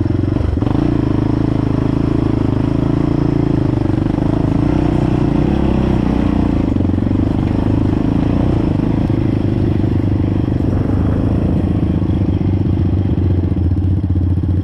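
Off-road vehicle's engine running steadily at a fairly even pitch while riding a rough trail.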